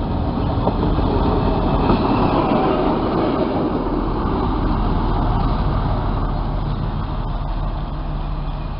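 Diesel locomotive passing close by, loudest about two seconds in and then fading. It is followed by the steady low hum of another diesel locomotive's engine further off.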